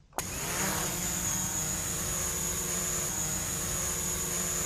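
Small camera drone flying, its motors and propellers making a steady whining hum with a high whine on top. It starts abruptly just after the start.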